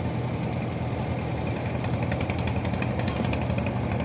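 Fishing boat's engine running steadily with a low hum, with a fast ticking rattle over it from about two seconds in.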